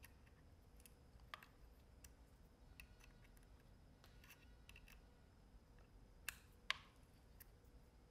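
Faint, scattered small clicks of an Allen wrench working a set screw tight on an AK's bolt-on charging-handle knob. Two louder clicks come a little after six seconds in.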